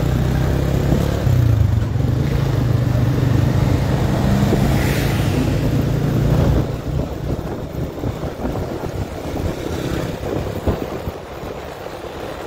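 Motorcycle engine running under way, with wind and road noise on the microphone. About six and a half seconds in, the steady low engine note drops away and gets quieter, leaving mostly a rough wind-and-road rush.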